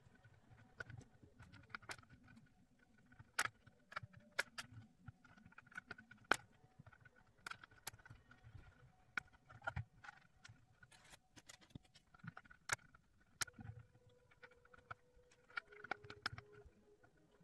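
Plastic pieces of a Ravensburger 3D puzzle ball clicking and tapping as they are handled and pressed into place, in irregular sharp clicks with soft low bumps of the shell being handled.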